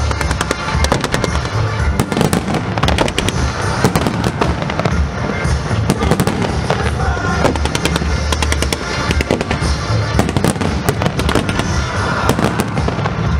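Aerial fireworks display: shells bursting in a dense, unbroken barrage of bangs and crackles, several reports a second.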